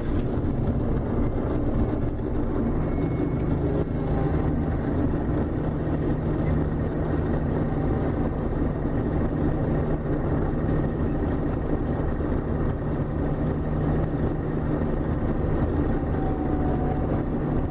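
John Deere 6620 combine running steadily while harvesting corn: a constant engine drone with a low hum, heard from inside the cab.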